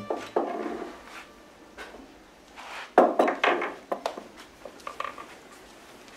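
Small objects handled on a wooden wall shelf: a scatter of short knocks and clinks, loudest about three seconds in.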